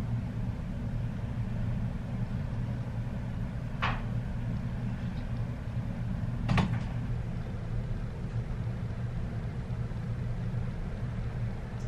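A steady low hum with two sharp clicks, one about four seconds in and a louder one just before seven seconds in.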